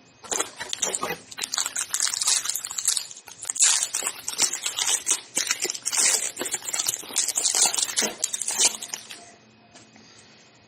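Foil trading-card pack wrapper being torn open and crinkled by hand, a dense crackling that stops about nine seconds in.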